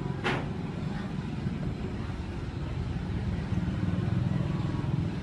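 A low, rough, steady drone, as from a running motor, with one sharp click about a quarter of a second in.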